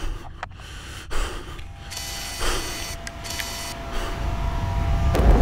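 FPV drone's electric motors whining steadily at several pitches, growing louder, with a low rushing rumble swelling in near the end.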